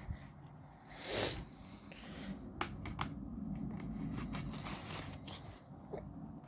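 Handling of a plastic Blu-ray case and disc: a brief rustling slide about a second in, then a few light plastic clicks and soft rubbing.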